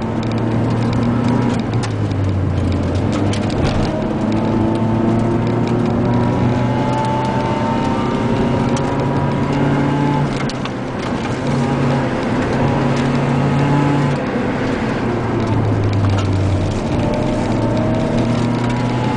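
Car engine heard from inside the cabin while driving. Its pitch holds steady for a few seconds, then steps up or down as the throttle is worked and eased, over steady road noise.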